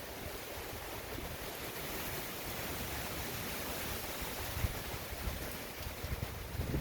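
Hurricane-force wind blowing steadily at 70 to 80 mph, with low gusts thumping against the microphone about four and a half seconds in and again at the end.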